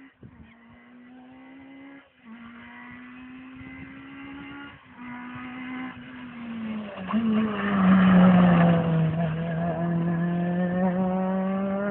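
Rally car engine running hard as the car approaches along the stage. The note rises steadily and breaks off briefly twice. It grows loud about seven seconds in, drops in pitch as the car passes close, and stays loud to the end.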